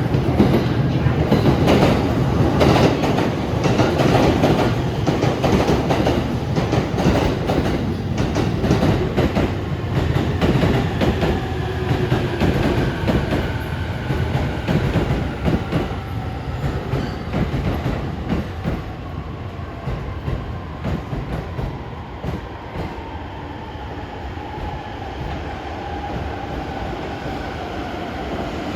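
JR Freight container train, Koki container flatcars behind an EF66 100-series electric locomotive, passing at speed. The wheels clatter over the rail joints in a fast, steady clickety-clack over a low rumble. It slowly fades as the train goes by.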